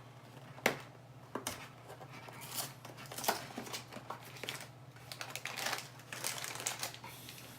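Cardboard snack box being pried and torn open by hand, with scattered tearing, crinkling and sharp clicks of the flaps, over a low steady hum.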